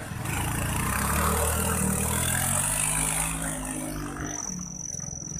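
Honda underbone motorcycle engine running hard as the bike is forced through deep mud, its note sinking a little and fading after about four seconds. A steady high-pitched tone comes in near the end.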